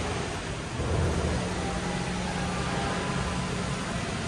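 Steady rush of water from an indoor wall waterfall spilling into a fountain pool, over a low steady hum.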